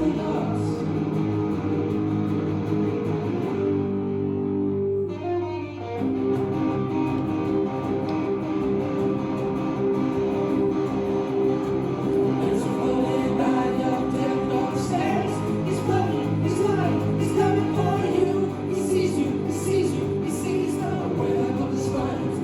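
A live rock band playing a guitar-led song, heard through a cell phone's microphone, with a brief lull about four seconds in.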